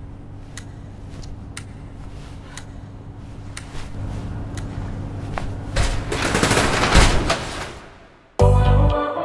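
Quiet steady hum with sharp ticks about once a second, then a rush of noise swelling up about six seconds in and dying away. After a brief silence near the end, the song's music begins with heavy bass notes.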